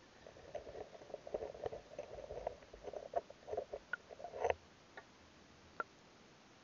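Muffled, rapid tapping and crackling of an underwater action cam's waterproof housing being jostled on the gravel riverbed, heard through the case, ending with a sharper knock about four and a half seconds in and two lone clicks after.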